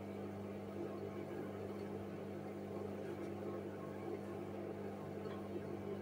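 Hoover front-loading washing machine tumbling a wash load: a steady motor hum with water sloshing as the drum turns.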